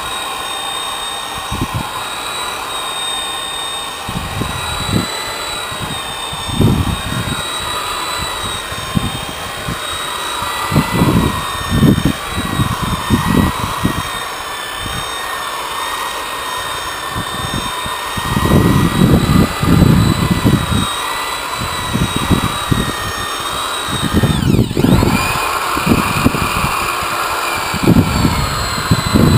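Electric polisher running steadily with a high whine that wavers slightly in pitch, its foam pad buffing polish onto a boat hull. Irregular low rumbling bursts run underneath, and the whine briefly dips and comes back up about 25 seconds in.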